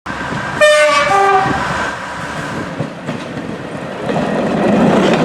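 A British passenger train's two-tone horn sounds once, a short high note followed by a lower one, about half a second in. Then the rumble of the train running past, swelling again near the end.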